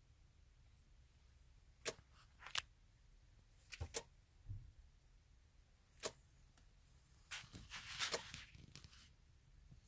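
Faint, sharp clicks at uneven intervals, a few single ones and then a quick cluster with some rustling about seven to nine seconds in.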